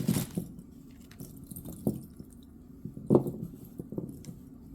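A few soft knocks and clicks from handling a bagged costume-jewelry set, the loudest about three seconds in.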